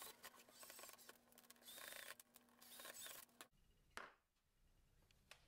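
Cordless drill/driver running faintly in short bursts as it drives machine screws into the PVC fittings, stopping abruptly about three and a half seconds in. A single sharp click follows about half a second later.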